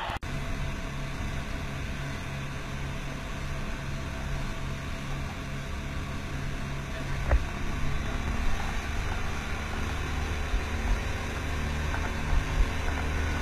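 Speedboat outboard motor running at speed: a steady engine drone under a rush of wind and water, with a few sharp knocks about seven seconds in and near the end.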